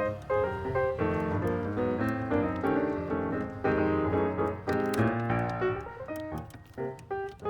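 Background music led by piano notes, playing steadily.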